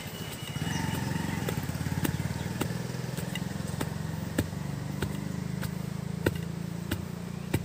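Wooden pestle (ulakkai) pounding roasted peanuts in a stone mortar, with a short knock about every 0.6 s. Under it runs a steady low engine-like hum.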